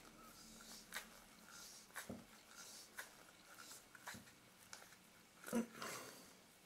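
Faint, scattered small clicks and handling noises as the front lens group of a Nikon Ai-s Nikkor 85mm f/2 lens is screwed by hand into its metal barrel, with the slightly louder click a little after five seconds.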